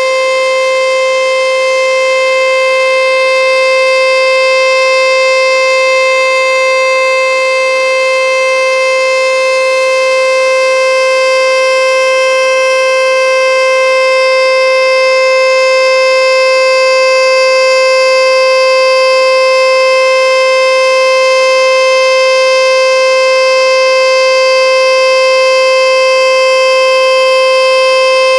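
ASC T-121 Tempest 8-port electronic outdoor warning siren sounding its steady alert tone: one loud, unwavering pitch held throughout, on a monthly test.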